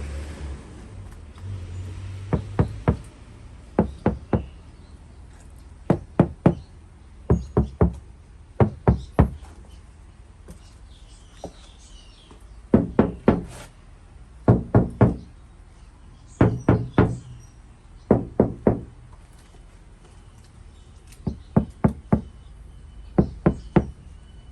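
Knocking in quick groups of three or four raps, repeated about eleven times with pauses between.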